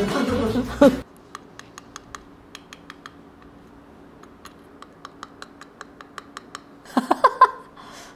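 Irregular sharp plastic clicks, a few a second, from an Akko ACR Top 40 mechanical keyboard's switches being worked during its build. A voice over music fills the first second, and a short burst of voice comes about seven seconds in.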